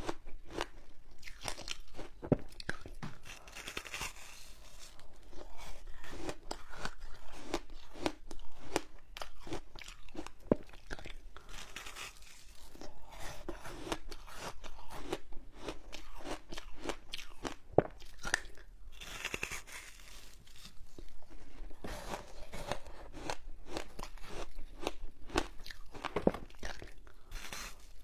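Frozen passion fruit ice, pulp and seeds, being bitten and chewed: a dense run of sharp crunches and crackles, with a few louder single cracks now and then.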